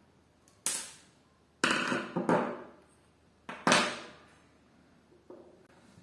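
Sharp knocks of hard objects striking a hard surface: one about a second in, a quick clatter of several hits near the middle, and one more loud knock after it, each dying away quickly.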